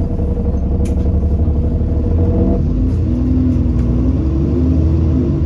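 Alexander Dennis Enviro400 double-decker bus on a Dennis Trident chassis, its engine and drivetrain rumbling steadily while under way, the engine note changing about two and a half seconds in. A few faint clicks sound over the rumble.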